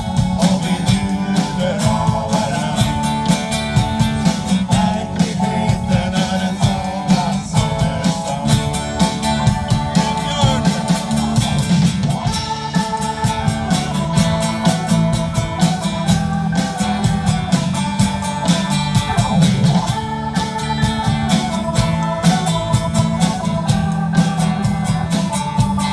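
Live band playing amplified through PA speakers: a drum kit keeping a steady beat under electric bass, acoustic and electric guitars and keyboard.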